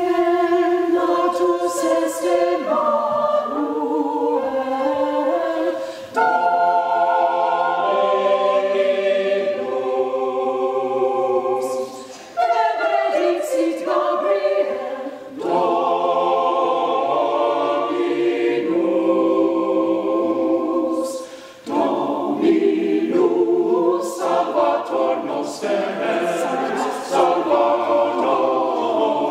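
Mixed choir of men's and women's voices singing an early-music Christmas carol, in phrases broken by short pauses for breath.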